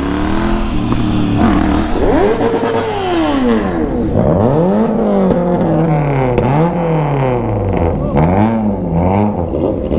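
Engine revved over and over while standing, its pitch climbing and dropping back about eight times in quick blips.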